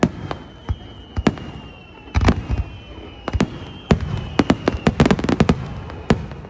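Aerial fireworks bursting: a string of sharp bangs at uneven intervals, with a quick run of crackling reports a little past halfway. A faint thin high whistle-like tone runs underneath.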